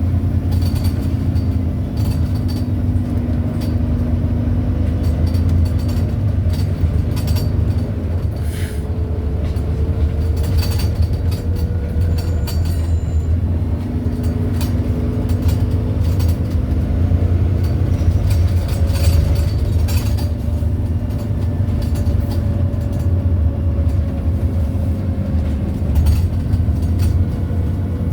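Volvo B9TL Wright Gemini double-decker bus heard from on board: a steady low engine and drivetrain rumble whose hum shifts in pitch several times, under repeated short sharp squeaks and rattles from the body, a weird squeaking noise.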